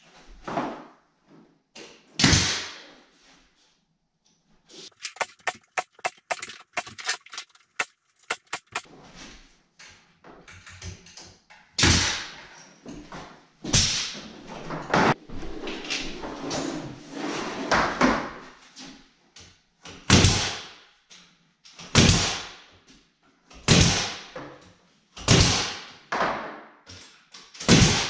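Interior wood trim being fitted: a fast run of sharp clicks about five seconds in, then a series of heavy knocks and thuds on wood, about one every second and a half to two seconds.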